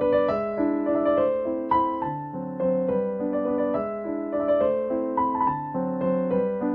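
Background music: a gentle melodic piano or electric piano piece, notes struck in a steady flowing line.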